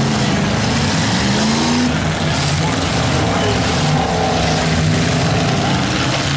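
Demolition derby cars' V8 engines running and revving together, with one engine rising in pitch about two seconds in.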